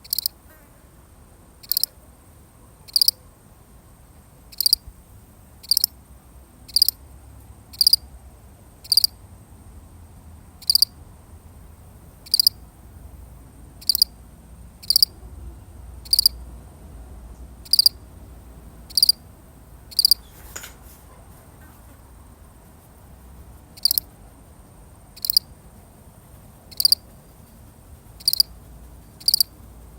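A single cricket chirping, short sharp chirps about once a second at an uneven pace, falling silent for a few seconds after about two-thirds of the way through before starting again. A faint steady high-pitched tone runs under it.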